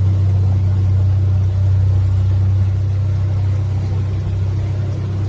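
Tour boat's engine running steadily at cruising speed: a constant low drone.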